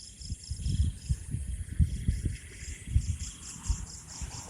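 Insects, crickets by the sound of it, chirping in a fast, even pulse. Irregular low thumps run under them.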